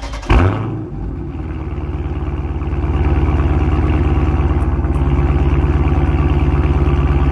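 Car engine heard at the exhaust tip: a sudden burst about a third of a second in, then steady idling with even exhaust pulses that grow a little louder over the first few seconds and then hold.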